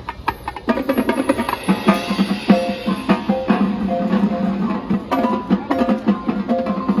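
High school marching band playing: sharp drum strokes, then about a second in the wind and brass section comes in with sustained chords over bass and snare drums.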